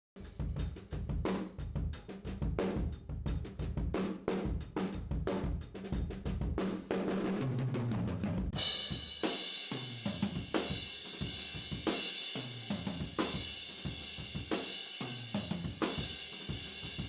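Multi-microphone recording of an acoustic drum kit playing: dense, fast strikes of kick, snare and drums for the first half, with a low fill falling in pitch about seven seconds in. From about halfway a steady cymbal wash rides over the beat.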